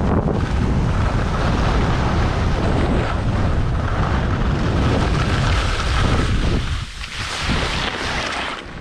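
Wind buffeting the action camera's microphone at skiing speed, over the hiss of skis sliding on packed snow. Both fall away near the end as the skier slows to a stop.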